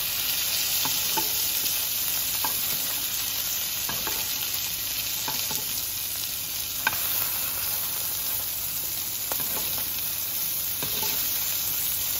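Beef steak sizzling in melted butter in a nonstick frying pan while a metal spoon bastes the butter over it: a steady sizzle with scattered small pops and clicks, and one sharper click just past the middle.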